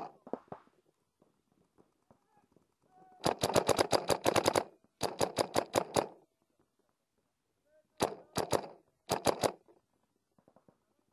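Dye DM11 paintball marker firing rapid strings of shots, several a second: a long string with a short break, then two quick strings of three near the end.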